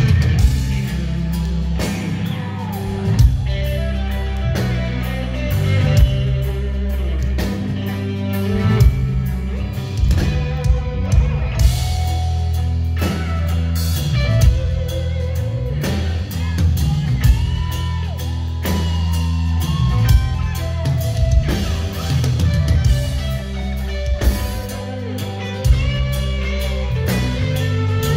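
Live rock band: distorted electric guitar playing a lead line with bent notes over bass and a drum kit, heard from the audience.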